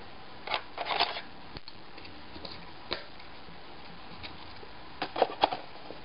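Light clicks and rustles from handling a laptop and its bottom cover panel, with a cluster of clicks about five seconds in as the cover is set back in place.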